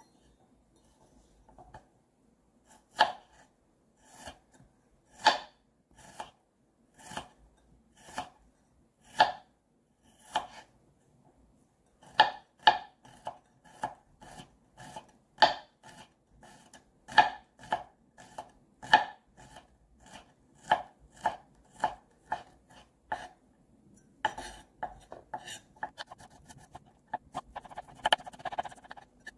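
Chef's knife slicing garlic cloves on a wooden cutting board: single blade strokes knocking the board, a stroke every second or so at first, quickening to about two a second, then a quick run of fine chopping near the end.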